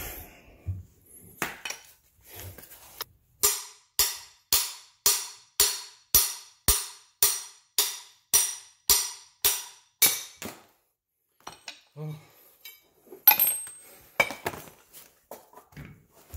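Claw hammer striking a steel socket set on a car's rear lower control arm, driving a bushing out: about fourteen even blows, roughly two a second, each with a short metallic ring. Lighter clinks of tools and metal parts being handled come before and after.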